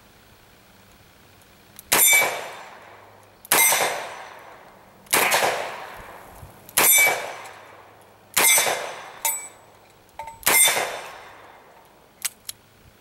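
Six double-action shots from a Smith & Wesson Model 27-2 .357 Magnum revolver, about a second and a half apart with a slightly longer pause before the last, each echoing away. Hits ring on the steel plate targets. Two light clicks come near the end.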